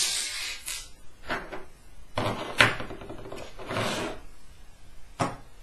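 Clear acrylic printer parts and an aluminium box-type linear slider block being handled and fitted together on a wooden table: a handful of short rubs and clacks, the sharpest about two and a half seconds in.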